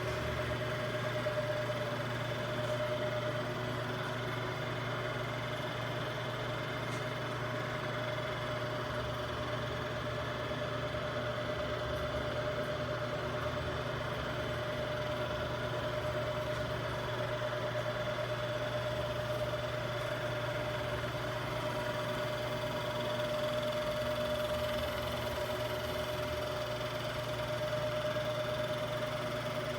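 2013 Royal Master Gen X profile grinder running, a steady machine hum with a constant mid-pitched whine over a low drone.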